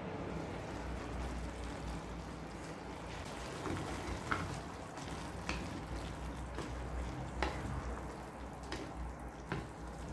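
Glass noodles (sotanghon) in simmering broth being stirred with a wooden spatula in a pot: a wet sloshing and bubbling, with a few light knocks of the spatula against the pot.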